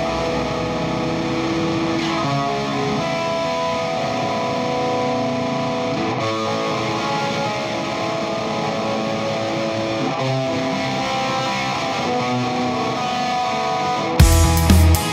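Background rock music: held electric guitar chords with no beat, until a loud, heavy beat with drums comes in near the end.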